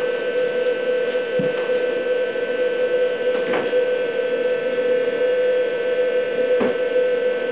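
Steady electrical hum, one strong mid-pitched tone with higher overtones over it, unchanging throughout, with three faint short knocks.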